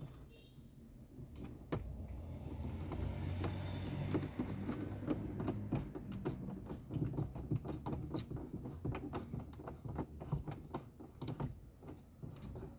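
Mounting screws for a car stereo being tightened by hand into the dashboard: many irregular small metallic clicks, scrapes and knocks from the tool, screws and bracket.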